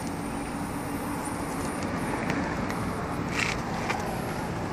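Steady background vehicle noise with a faint, even hum, and a brief hiss about three and a half seconds in.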